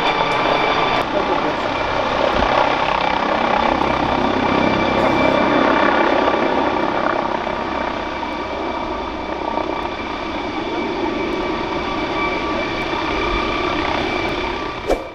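MD Helicopters MD900 Explorer twin-turbine helicopter hovering overhead: steady rotor noise with a constant high turbine whine. Just before the end the sound swells briefly and then cuts off suddenly.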